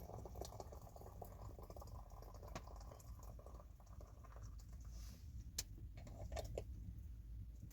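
Faint scattered clicks and light crackling over a low steady rumble, with one sharper click about halfway through.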